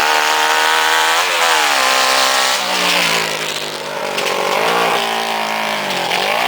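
Yamaha 550cc four-cylinder engine of a racing lawn mower running under throttle as it is driven, its note dipping and climbing again about a second in, near the middle, and just before the end.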